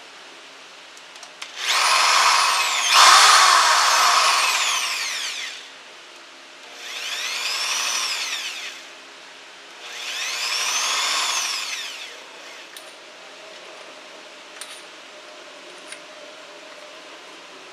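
Mailtank impact drill's motor run up three times: each run whines up in pitch and winds back down as the trigger is let go, the first one longest and loudest with a second squeeze partway through.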